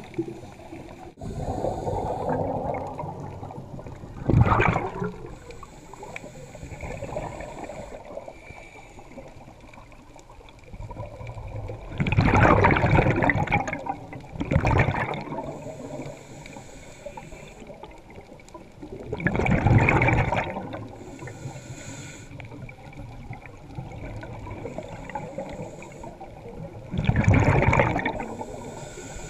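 Underwater ambience recorded through a dive camera, with loud gushes of scuba exhaust bubbles from a diver's regulator every several seconds, five in all.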